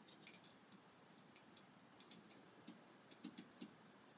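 Near silence, with a scatter of faint, irregular small clicks.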